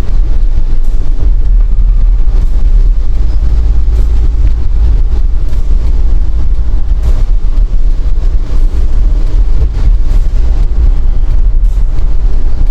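Strong wind buffeting the microphone while travelling along the road: a loud, steady, deep rumbling roar with no clear engine note.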